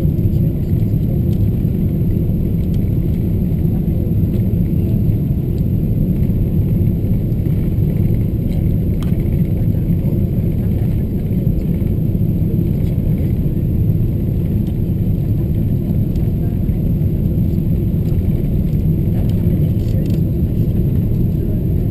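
Steady, low cabin rumble inside a Boeing 777-200ER on final approach: engine and airflow noise with the flaps extended, unchanging throughout.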